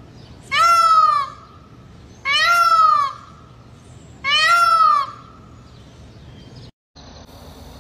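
Male Indian peafowl (peacock) giving three loud calls about two seconds apart, each rising then falling in pitch.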